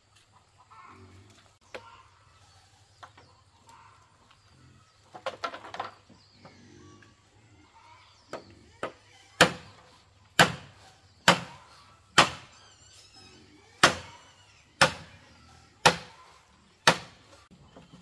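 Machete chopping into a green bamboo pole: sharp, loud whacks about once a second, eight of them, starting about halfway through.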